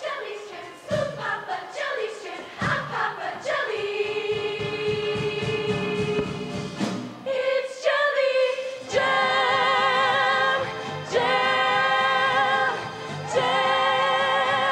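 Show choir singing with accompaniment: short choppy phrases punctuated by sharp hits, then a long held note, then three big sustained chords with vibrato, separated by short breaks.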